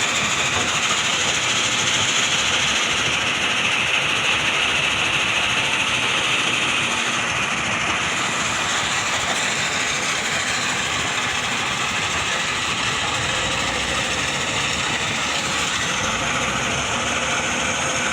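Bull backhoe loader's diesel engine running steadily as the machine works, a continuous clattering mechanical noise.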